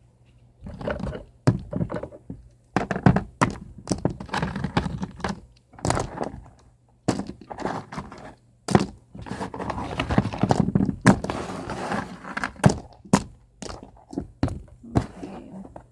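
Small stones clacking and knocking as they are handled and set down among a cup and a wooden tray, with rustling handling noise between the knocks. The knocks come irregularly, many of them, starting about half a second in.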